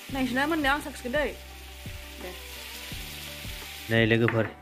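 Chicken and jackfruit pieces sizzling as they fry in oil in a steel wok, a steady hiss.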